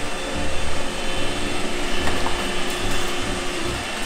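Robot vacuum cleaner running, a steady motor hum with a held low tone.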